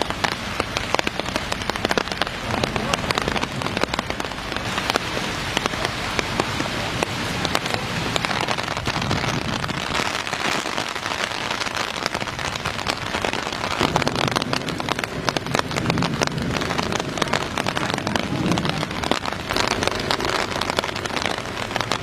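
Steady rain falling, with many individual drop hits close to the microphone.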